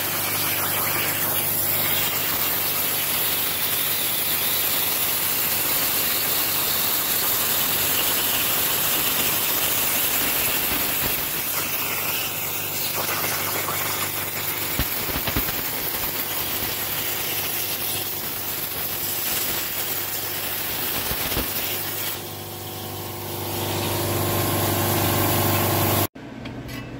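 CNC plasma cutter torch cutting 3/16-inch steel plate: a loud, steady hiss with a steady hum underneath. The hiss drops for a moment about 22 seconds in, comes back, then stops abruptly near the end.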